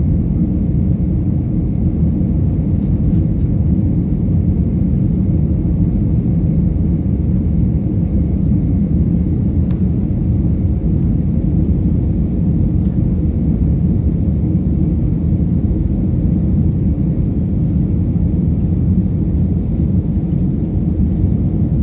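Steady low roar of an Airbus A321's jet engines and rushing air, heard from inside the cabin as the airliner climbs after takeoff.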